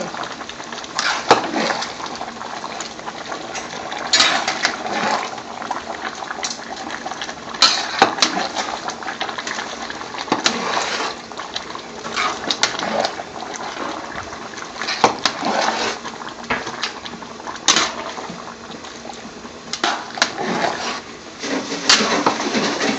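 A large pot of soft-cooked onion base gravy being stirred by hand: wet churning and sloshing of the soggy vegetables and liquid, with scattered knocks of the stirring utensil against the metal pot.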